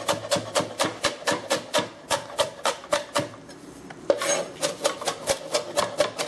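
Chef's knife chopping green onions on a plastic cutting board: a quick, even run of knife strokes, about four a second, with a short pause a little past the middle before the chopping resumes.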